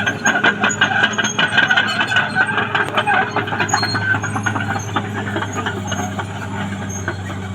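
Cat D6R XL crawler bulldozer working: the diesel engine runs steadily under rapid clanking and a squeal from the steel tracks, busiest in the first half.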